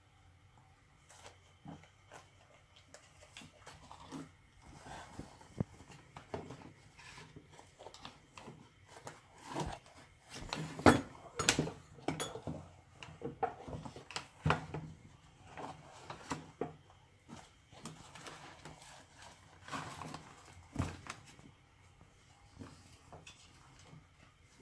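A Siamese cat rummaging in a tea box: irregular rustling of tea-bag sachets and small clicks and knocks against the box, close to the microphone. The knocks are loudest around the middle.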